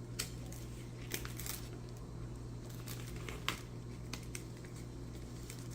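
Sheets of tattoo stencil transfer paper being handled, with scattered light crinkles, rustles and small taps over a steady low hum.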